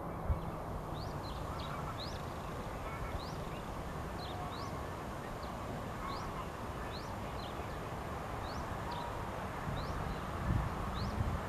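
Goslings peeping: short, high, rising peeps repeated every second or so, over a steady low rumble of wind.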